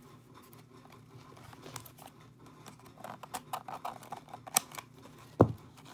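Paper packaging being handled and torn open by hand: a run of small crinkles and clicks, busiest in the second half, with a sharp click and then a louder thud a little after five seconds in.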